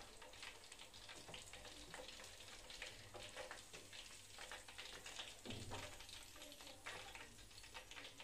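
Faint crackling sizzle of chicken 65 pieces deep-frying in oil in a small pan, with a soft low knock about five and a half seconds in.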